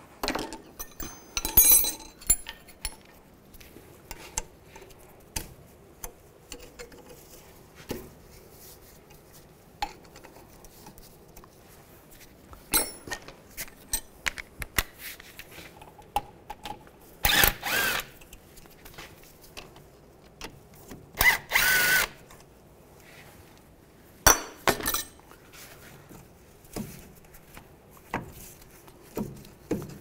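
Cordless power tool running in several short spurts of about a second each, backing out the brake caliper bolts so the caliper can come off. Metal clicks and knocks come between the spurts.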